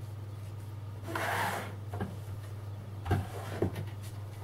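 Hands handling a phone and USB cables on a desk: a short rustle about a second in, then a few soft knocks, over a steady low electrical hum.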